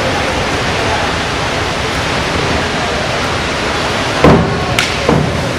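Steady hiss of an indoor pool hall, then about four seconds in a sudden loud splash as a springboard diver enters the water, followed by a couple of sharp cracks near the end.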